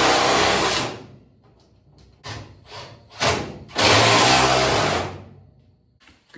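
Power drill running in two spells of about a second each, with a shorter spin and small clicks between, driving fasteners.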